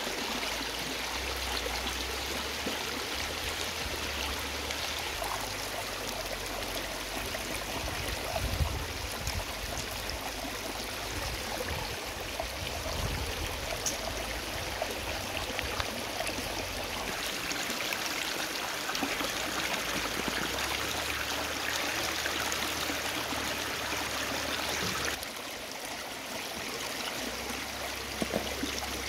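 Shallow creek running over rocks, a steady rush of flowing water, with a few brief knocks.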